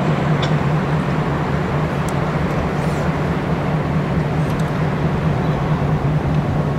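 Diesel freight locomotive running with a steady low engine drone as it moves slowly along the track, with a few faint high clicks over it.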